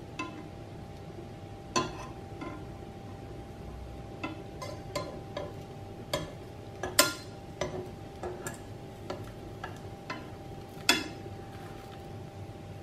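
Metal spoon, knife and tongs clinking and scraping against a nonstick frying pan while a crepe is loosened and flipped: irregular sharp clinks, the loudest about seven and eleven seconds in, over a faint steady hum.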